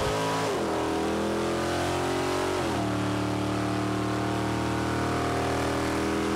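Car engine at full throttle on a drag strip run, heard from inside the cabin, pulling hard with two upshifts (about half a second in and near three seconds in), then holding high revs.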